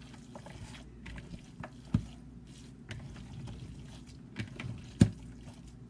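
Hands kneading raw ground beef with canned tomato in a plastic bowl: wet squelching and squishing, with two sharper knocks about two and five seconds in.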